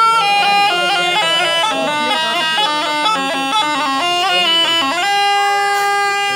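Snake charmer's pungi (been), a gourd reed pipe, playing a quick run of short stepping notes, then settling on one long held note about five seconds in.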